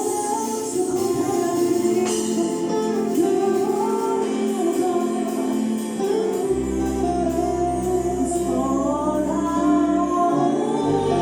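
Gospel choir singing with instrumental accompaniment; a low bass note comes in and is held from about two-thirds of the way through.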